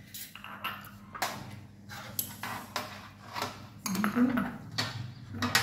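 A metal ladle and spoons clink and scrape against ceramic bowls and a steel platter as rice porridge is served. The clinks come irregularly throughout.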